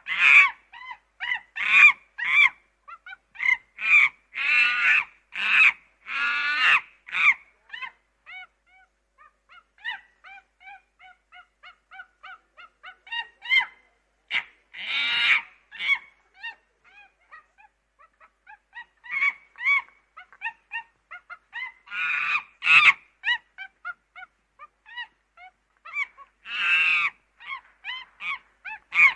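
Monkey calling: a fast series of short pitched calls and louder screeches, dropping to a softer run of small calls about a third of the way in, then growing loud again toward the end.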